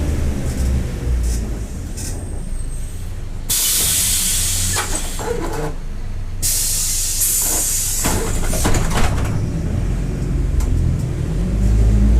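Diesel engine of a Mercedes-Benz OF-1721 BlueTec 5 city bus heard on board, running low. A long, loud hiss of released compressed air comes about three and a half seconds in, and a shorter one follows around seven seconds. Near the end the engine picks up and a whine rises in pitch as the bus pulls away.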